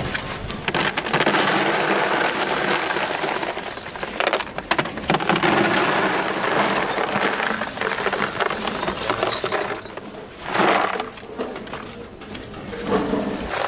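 Loose scrap metal pieces clattering and clinking against each other in a dense, continuous rattle, easing briefly around ten seconds in.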